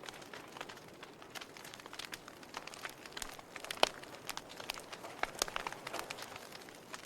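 Wood logs burning in a fireplace, crackling with irregular small pops and snaps over a soft hiss, with one louder pop a little before halfway.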